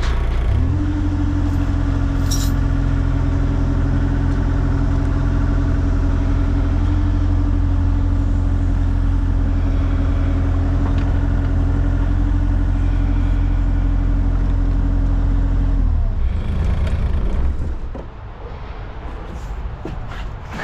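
Excavator's diesel engine revving up about half a second in and running steadily at high speed, then dropping back toward idle about 16 seconds in.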